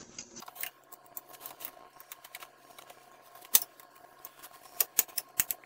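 Channel-lock pliers gripping and working a coolant hose clamp at the thermostat housing. Scattered sharp metallic clicks and scrapes, the loudest about three and a half seconds in and a quick cluster near the end.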